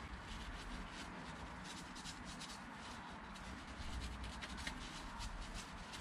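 Paper towel rubbing over a small rear brake caliper part, wiping off brake dust: a faint, scratchy rustle in quick repeated strokes.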